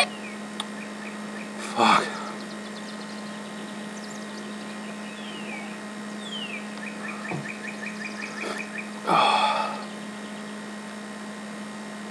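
A man sighing out two loud breaths, one about two seconds in and one about nine seconds in, his mouth burning from very hot wings. Underneath are a steady electrical hum and faint high chirps.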